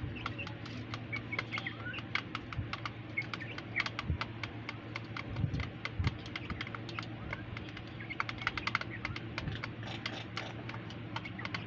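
Hens pecking food from a steel plate: rapid, irregular taps of beaks on metal, with faint bird calls now and then over a steady low hum.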